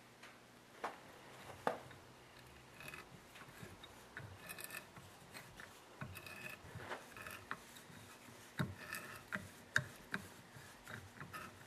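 Faint, intermittent scraping and small clicks of a hand tap wrench turning a 1/4-inch tap, cutting threads into a brass carburetor needle-valve seat.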